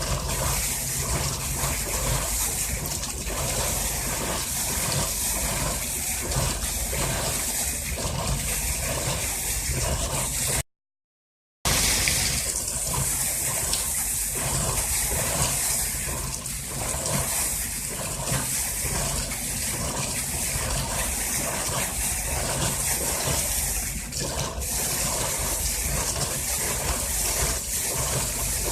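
A newly drilled borewell being flushed with a compressor: water and air gushing steadily out of the bore with a low engine rumble underneath. The sound cuts out for about a second about eleven seconds in.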